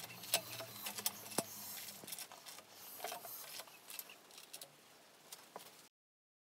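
Scattered light clicks and small knocks of metal as a rebuilt Mitsubishi 4G63 engine is turned over by hand at the crank to line up its timing marks. The sound cuts off abruptly near the end.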